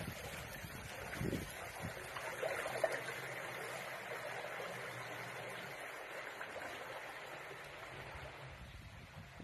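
Water rushing and splashing around a small homemade boat as it moves away along a river, fading gradually.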